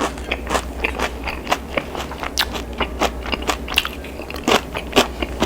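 Close-miked chewing of crispy fried chicken: a quick, irregular run of crunches, roughly three a second.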